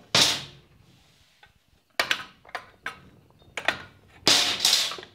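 Metal parts of a winch and its steel mounting bracket clanking and scraping on a workbench as they are handled and fitted together: a loud clatter at the start, a few light clicks in the middle, and a longer clattering scrape near the end.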